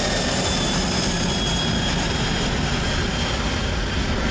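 Four-engine Boeing 747 freighter climbing out after takeoff: a steady jet engine roar, with faint whining tones sliding slowly down in pitch.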